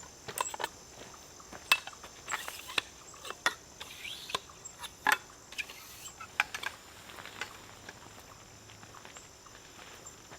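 Insects trilling steadily, with irregular sharp clicks and taps over them that thin out after about seven seconds.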